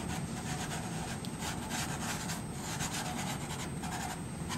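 A soft pastel stick scratching across paper in a quick, irregular series of short strokes, as colour is laid onto a painting.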